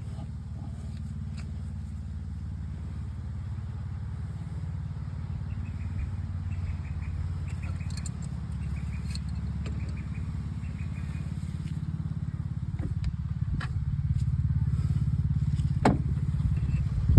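Fendt tractor's diesel engine idling steadily, getting a little louder in the last few seconds. There are a few sharp metal knocks, the loudest about three seconds before the end.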